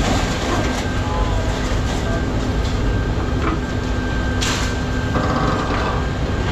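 Heavy machinery running steadily: the diesel engine and hydraulics of a material handler working its boom, with a low rumble and a steady whine. There is a brief burst of noise about four and a half seconds in.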